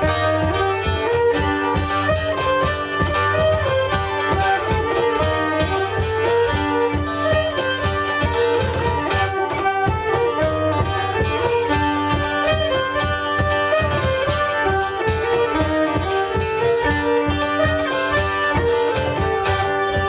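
Live folk band playing an instrumental passage: a fiddle melody over acoustic guitar and a steady cajón beat.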